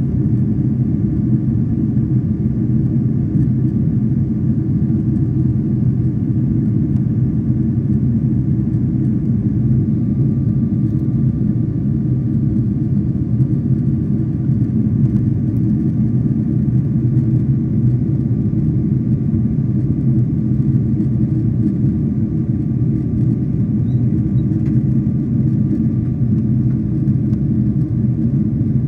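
Jet airliner cabin noise in flight: the steady low rumble of the engines and the airflow over the fuselage, with a faint steady whine above it.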